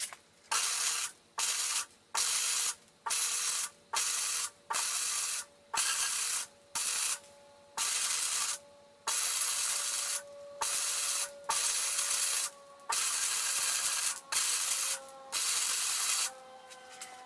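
Electric arc welder welding steel frame pieces: a crackling hiss that starts and stops in short bursts, about fifteen welds of half a second to a second each with brief pauses between, during finish welding of the parts.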